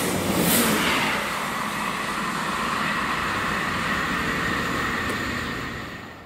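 A multiple-unit passenger train running through a station at speed: wheel-on-rail rumble and hiss, loudest in the first second, with a steady high ringing tone, then dying away shortly before the end.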